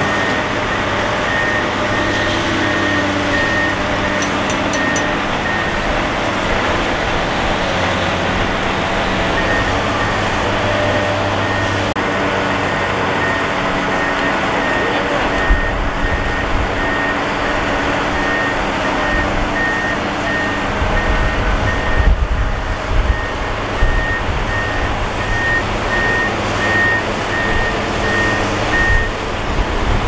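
Heavy diesel construction machinery running steadily, with a backup alarm beeping about twice a second; the beeping pauses for a few seconds early on, then resumes. Heavier low rumbling comes in from about halfway.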